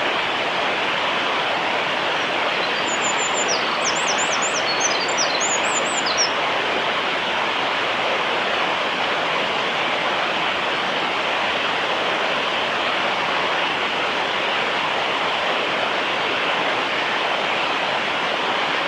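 A Eurasian wren sings one song of rapid high notes and trills, about three seconds long, starting about three seconds in. It is set against a steady rush of running water that is louder than the song.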